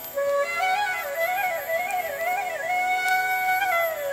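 Background music: a solo flute melody with quick ornamental turns, settling into a long held note that slides down near the end.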